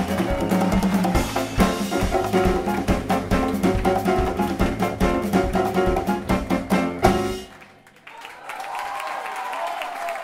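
Jazz quartet of piano, bass, drum kit and bongos playing the final bars of a samba-jazz tune, ending on a last accented hit about seven seconds in that cuts off suddenly. After a brief pause the audience starts applauding near the end.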